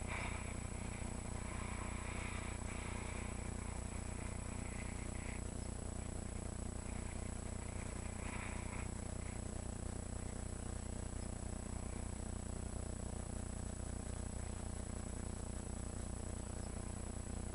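Faint high chirring of insects, strongest for the first few seconds and again about eight seconds in, over a steady low hum.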